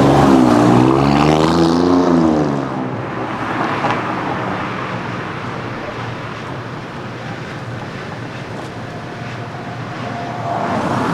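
A car engine accelerating past loudly, its pitch swinging up and down for about the first three seconds, then fading into steady street traffic noise. The engine noise swells again near the end.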